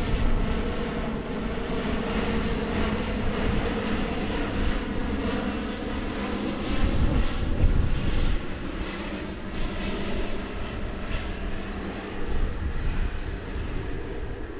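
Jet airliner passing overhead, its engines giving a steady, dense rush of noise with faint humming tones in it.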